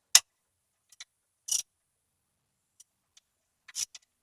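A few sharp clicks and brief scuffs of hand work, the loudest click right at the start, another scuff about a second and a half in, and a small cluster of clicks near the end.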